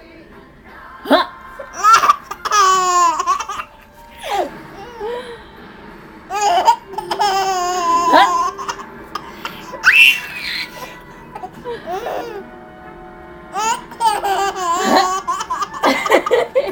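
Baby girl laughing in several separate bursts of hiccupy giggles, each starting suddenly.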